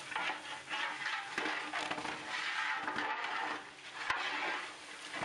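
Beef biryani masala sizzling and bubbling in a large metal pot while a long-handled metal ladle stirs it, scraping and clinking against the pot a few times.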